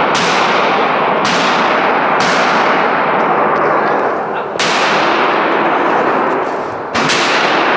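Gunfire at a shooting range: five sharp shots at uneven spacing over several seconds, each followed by a long ringing tail that keeps the sound loud between shots.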